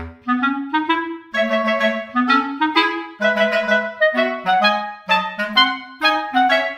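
Background music: a bouncy tune of short notes played one after another over a moving lower line.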